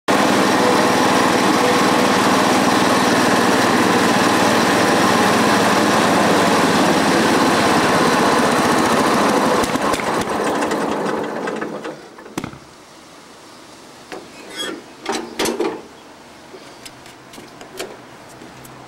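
Riding lawn tractor's engine running steadily, then faltering about ten seconds in and dying out: the engine stalls. A few short sounds follow in the quiet after it.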